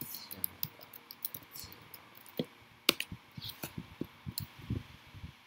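Scattered, irregular clicks of computer keys, a dozen or so quick taps over a few seconds.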